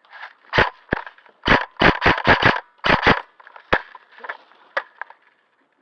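Airsoft guns firing: about a dozen sharp cracks in quick, irregular strings, bunched most tightly between about one and a half and three seconds in, with single shots after.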